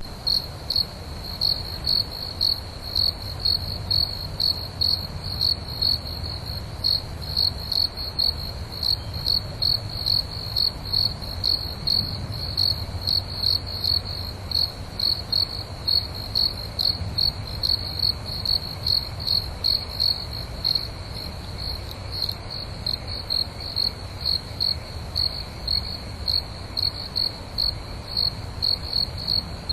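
Crickets chirping at night, one high chirp repeating in a steady rhythm a little over twice a second, over a faint low rumble.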